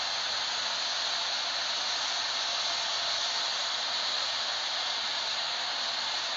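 Steady, unbroken rushing hiss of a Boeing 777 jetliner's noise, even in level and without any rise or fall.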